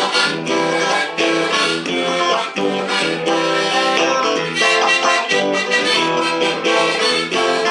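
Instrumental break between verses of a Russian drinking song: chordal accompaniment playing on without singing.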